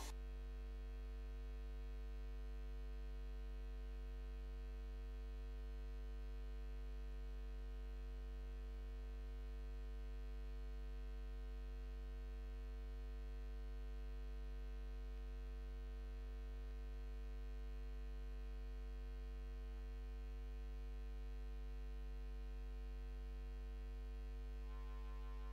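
Steady low electrical hum with a stack of overtones, unchanging throughout.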